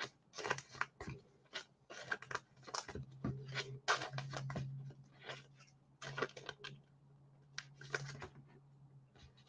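Quiet, irregular rustling, ticking and tapping of trading cards and pack wrappers being handled, with a faint low steady hum through the middle stretch.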